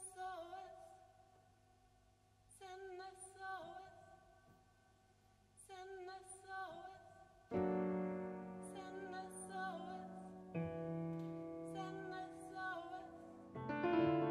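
A woman's voice singing short wavering phrases about every three seconds into an open grand piano, with held tones ringing under them. About halfway through, sustained piano chords come in beneath the voice, and a fuller chord enters near the end.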